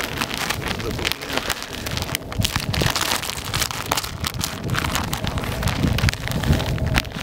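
Dry fishing groundbait being poured and stirred by hand: a dense, crackling rustle, with wind rumbling on the microphone.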